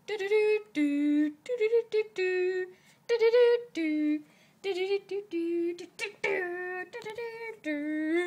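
A person's voice mimicking a Morse code signal as a string of sung "doo" notes, some short and some long, at shifting pitches with brief gaps between them.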